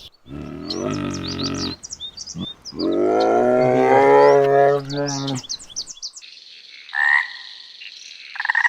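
Two long, low animal calls, the second rising and falling in pitch, with short high bird chirps above them. About six seconds in, a frog starts croaking in a rapid rhythmic series.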